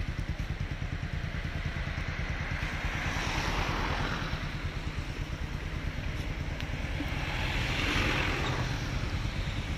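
A motor vehicle's engine idling close by with a rapid, even low throb, while passing traffic on the wet road swells up twice with tyre hiss: a car about three and a half seconds in, then a light truck about eight seconds in.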